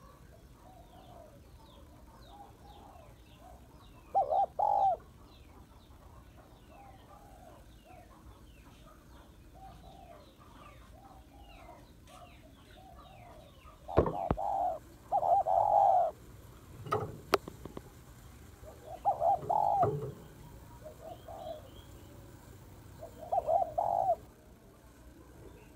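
Spotted dove cooing in short phrases: one coo about four seconds in, then a run of louder coos through the second half. Fainter coos and high chirps of small birds fill the gaps, and there are a couple of sharp clicks.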